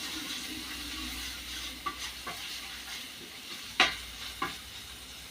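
Cooking oil sizzling in a hot frying pan as a steady hiss, with a few sharp clicks and knocks of a utensil against the pan; the loudest knock comes about four seconds in.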